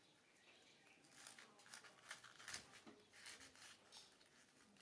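Faint crisp cuts of a cleaver slicing through a head of cabbage held in the hand, a quick uneven run of strokes starting about a second in.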